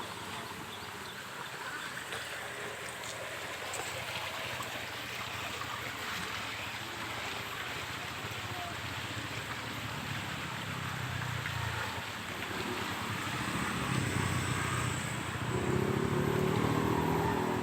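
Steady rushing of a swollen, flooded river, with a low droning tone that rises and falls in the second half.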